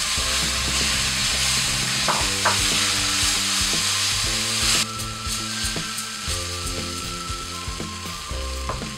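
Wet tomato and green-chili purée sizzling in hot oil and fried onion-garlic masala in a non-stick wok, stirred with a wooden spatula. The loud sizzle drops away suddenly about five seconds in, leaving the scrape and tap of the spatula in the pan.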